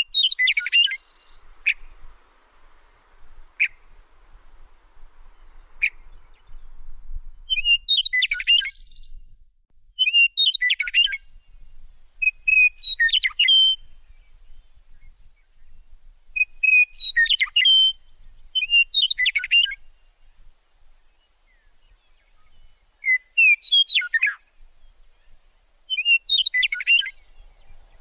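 A songbird singing short chirping phrases of about a second each, repeated every two to three seconds, with a few single sharp notes between phrases in the first several seconds.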